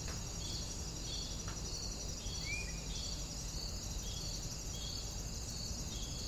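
Insects chirping in an even rhythm of about two chirps a second over a constant high-pitched insect drone, with one short rising chirp about halfway through.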